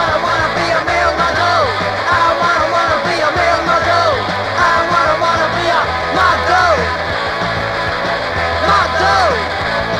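A late-1970s punk rock recording playing: a band of electric guitars, bass and drums, with repeated pitched notes that slide down in pitch over a steady bass line.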